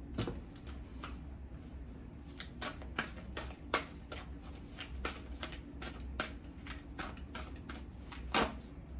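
A deck of oracle cards being hand-shuffled overhand: a run of short, irregular card flicks and slaps, a few a second.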